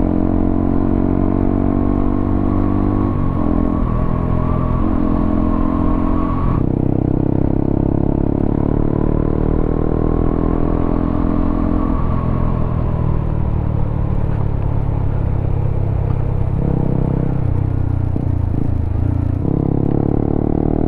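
Honda CBR motorcycle exhaust through an aftermarket WRX K3 oval silencer on the stock header, running steadily, its engine speed stepping up and down several times.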